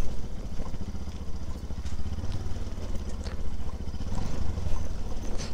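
Bajaj Pulsar NS200's single-cylinder engine running steadily as the motorcycle rides over a rough, off-road stretch, with a few scattered knocks and clatter from the bumps.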